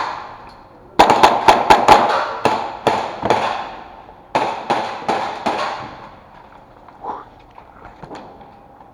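Airsoft guns firing a rapid string of sharp cracks about a second in, then a second, shorter string of about five shots a second later.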